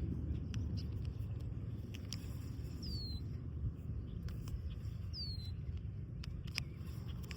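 A bird calls twice, a short high whistle sliding down in pitch, about two seconds apart, over a steady low rumble and scattered faint clicks.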